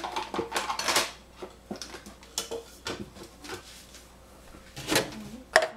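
Scattered clicks and knocks of kitchen items being handled, with a louder clatter about five seconds in.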